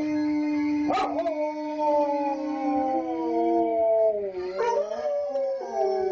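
Several Old English Sheepdogs howling together in long, overlapping howls that slide slowly down in pitch, with a short sharp yip about a second in.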